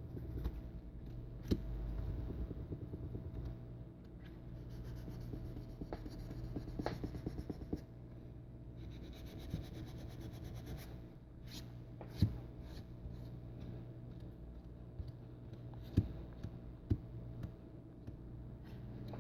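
Light rubbing and scratchy wiping on the glass of a tablet screen as it is cleaned of dust, glass bits and fingerprints, with a few sharp taps.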